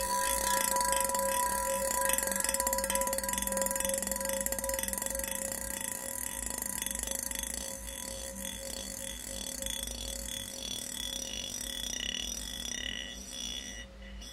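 Experimental electronic soundtrack: several steady high tones held together under a fast pulsing, rattling texture, slowly fading over the stretch.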